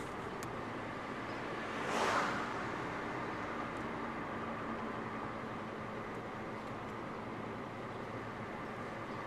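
Steady road and engine noise heard from inside a moving car, with a louder swish about two seconds in as an oncoming car passes.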